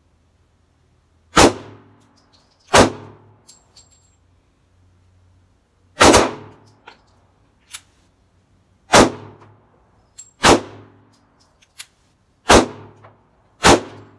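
Canik TP9 SF Elite 9mm pistol fired seven times in slow, aimed shots, spaced about one to three seconds apart, each shot followed by a brief ringing echo.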